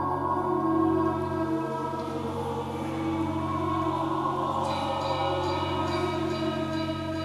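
Ambient drone music: many held tones layered on top of one another, shifting slowly, with higher tones coming in about two-thirds of the way through.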